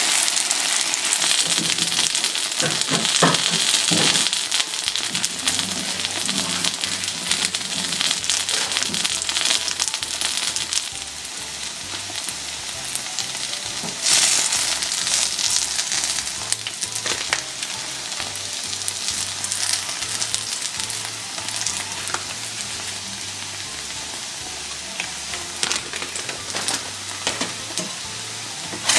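Potato-starch-coated shiitake mushrooms sizzling in oil in a frying pan. There are a few light knocks about three to four seconds in, and the sizzle swells again about halfway through.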